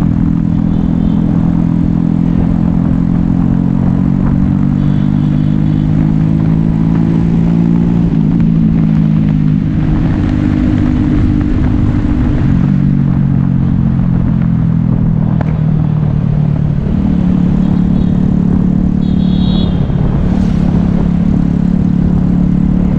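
Yamaha Taurus underbone motorcycle's single-cylinder four-stroke engine running at a steady cruising speed, its pitch dipping and recovering a few times in the second half as the throttle eases and opens again.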